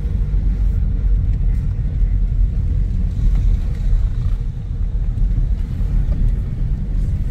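Inside a moving car's cabin: a steady low rumble of engine and tyre noise while driving slowly along a street.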